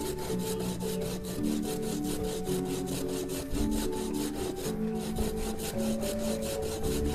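Fresh coconut flesh rasped on a flat metal hand grater in quick, even scraping strokes, several a second, over soft background music.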